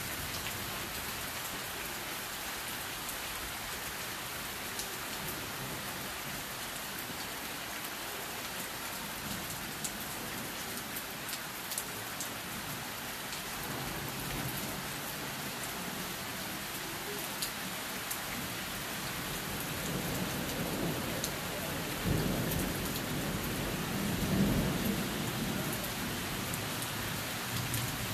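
Steady rain falling, with sharp ticks of single drops close by. Thunder rumbles in from about twenty seconds in and is loudest a few seconds before the end.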